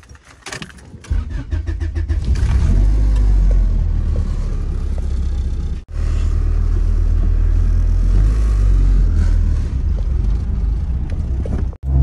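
A car running with a steady low rumble, which comes in about a second in after a few clicks. The rumble cuts out for an instant about halfway through and again near the end.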